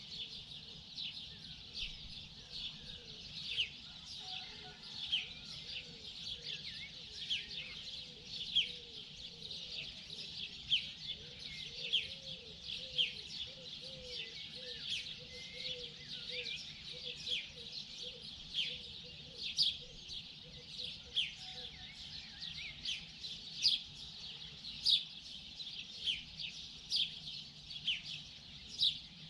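Many small birds chirping, a dense stream of short, high chirps a few times a second. A lower, wavering call runs beneath them through the middle stretch.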